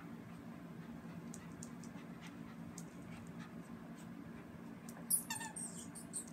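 Miniature poodle puppies at play: light toenail ticks on a hard floor, then a short, high-pitched yelp about five seconds in, followed by a couple of brief squeaky sounds.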